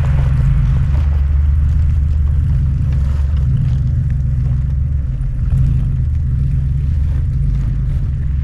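Lifted 4x4 GMC Safari van's engine running with a steady low rumble as the van crawls along a rocky off-road trail.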